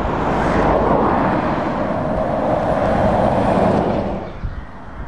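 DAF XG tractor unit driving past at road speed, its engine and tyre noise swelling as it nears and loudest for about three seconds, then dropping away sharply about four seconds in.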